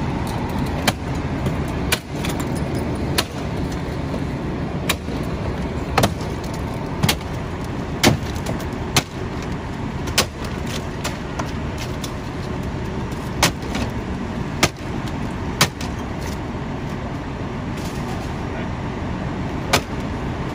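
Irregular sharp knocks and clanks of a firefighter's hand tools prying apart a burned car's dashboard and steering column, over a steady low rumble.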